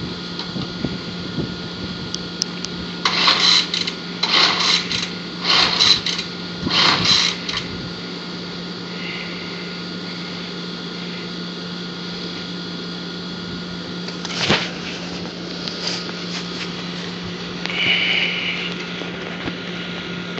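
Recoil starter cord of a handheld gas leaf blower pulled four times in quick succession, about a second apart, each pull a short whirring rasp, without the engine catching. A sharp click follows later, then one more short whir near the end, over a steady low hum.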